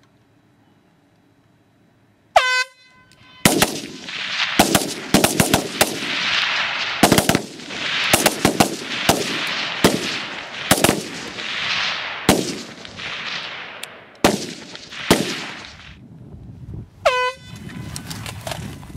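A shot-timer buzzer sounds about two seconds in. Several rifles then fire many shots in quick, overlapping, irregular succession for about twelve seconds, as a squad each puts three rounds on target. A second buzzer near the end marks the 15-second time limit.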